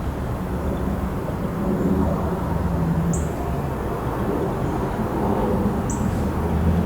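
A motor engine running steadily with a low hum, with two short high chirps about three and six seconds in.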